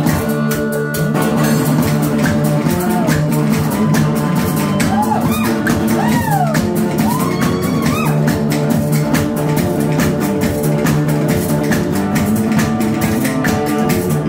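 Live instrumental break by a small band: banjo over a steady kick-drum beat, with a lead instrument playing sliding, bending notes about five to seven seconds in.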